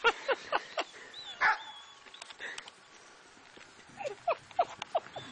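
Several puppies yipping and whining in short yelps: a cluster at the start, a thin high whine a little after one second, and another cluster of yips about four seconds in.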